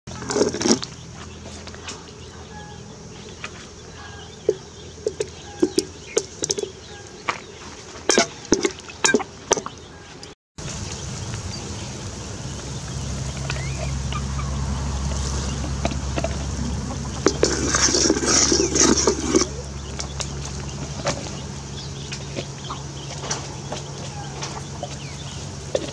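Metal ladle clinking and scraping against a large aluminium pot as broth is stirred, with chickens clucking nearby. About ten seconds in, a steady low rumble sets in, and a louder run of clucking comes a few seconds past the middle.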